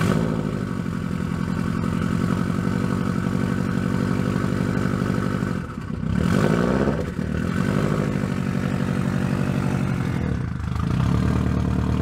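2006 Subaru Impreza WRX STI's turbocharged flat-four engine heard from the exhaust, catching at the start and then idling steadily, with a brief rev about six seconds in.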